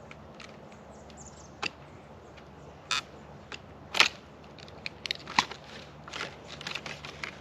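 Handling noise as a plastic chain cover is worked off a chainsaw's bar: scattered sharp clicks and knocks, the loudest about four seconds in, with small crackles and rustles near the end.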